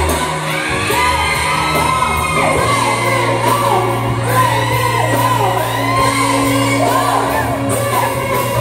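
Live band music with a singer, amplified and loud, over long held bass notes.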